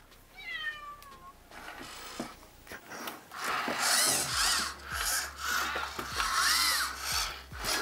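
MarsCat robot cat's servo motors whirring in a run of short bursts, with rising-and-falling whines, as the robot comes alive and starts moving its head, body and tail. A short falling tone sounds about half a second in.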